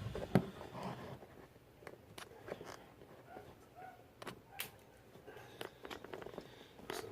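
Light scattered clicks, knocks and faint rustling from hands handling a boxed figure and its packaging.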